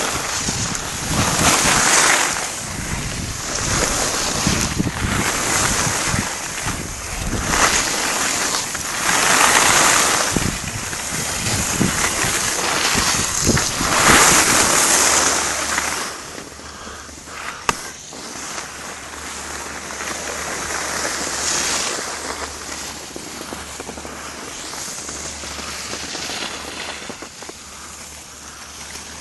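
Skis carving turns on a groomed snow piste, with wind on the microphone: a swelling hiss of edges scraping the snow roughly every two seconds, quieter and steadier from about halfway through.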